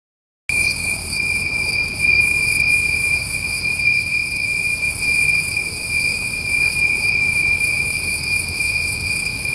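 Night insects, crickets among them, chirring in a dense steady chorus: one unbroken high trill with a shimmering hiss above it, the sound of a hot summer night. It starts suddenly about half a second in.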